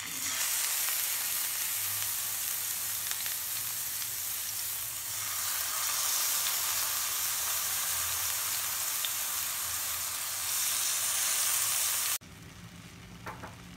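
Marinated chicken pieces sizzling as they fry in hot oil in a pan, a dense steady hiss. It cuts off suddenly about twelve seconds in, leaving only faint background.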